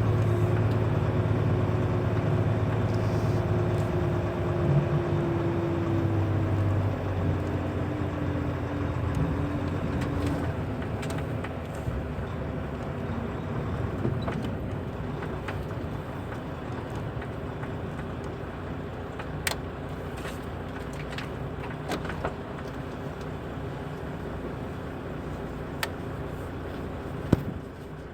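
Truck engine running at low speed with a steady hum that fades after about ten seconds, followed by a few sharp knocks near the end.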